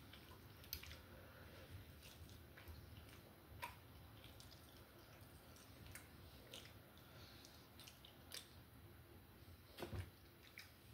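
Faint wet clicks and smacks of someone eating a chicken wing, gnawing the meat off the bone, with one louder knock near the end.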